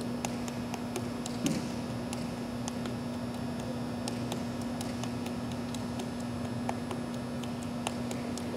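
Quiet indoor arena room tone: a steady low hum with faint, scattered clicks.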